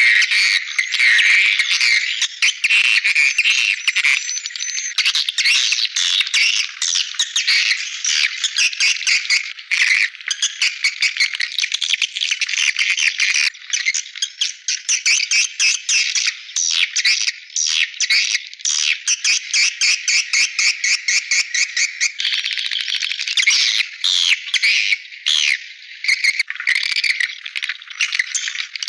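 Swiftlet calls: a dense, unbroken chatter of rapid twittering chirps and trills, a lure recording of the kind played to draw swiftlets into nesting houses. The sound is thin, with all the low end cut away.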